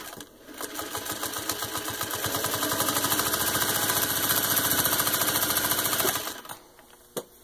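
1952 Singer 301-2 sewing machine, with a rebuilt motor, stitching through six layers of denim. It picks up speed to a fast, even needle beat, runs steadily, then stops about six seconds in.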